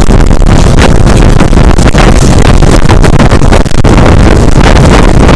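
Wind buffeting a microphone held outside the window of a moving passenger train, over the train's low running rumble; very loud and unbroken, with one brief dip in the middle.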